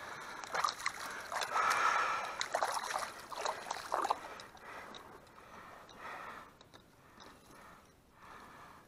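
Shallow muddy water splashing and sloshing as a carp shot with a bowfishing arrow is hauled in on the line, with a few sharp clicks; it is busiest in the first four seconds or so, then dies down.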